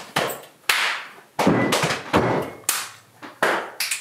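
A run of sharp percussive cracks, roughly one every two-thirds of a second and closer together near the end, each ringing out briefly before the next.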